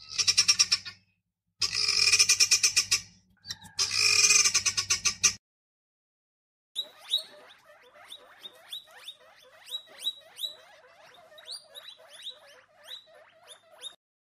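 Animal calls: four loud pitched calls in the first five seconds, then after a short pause a long run of short, quick chirps.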